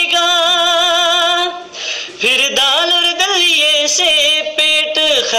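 A voice singing a Hindi song without words: one long held note with a wavering pitch, a short break about two seconds in, then quick ornamented phrases.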